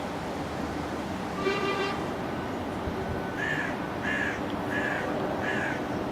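A bird calling over a steady background rumble: one call about a second and a half in, then four short calls in an even row, about two-thirds of a second apart.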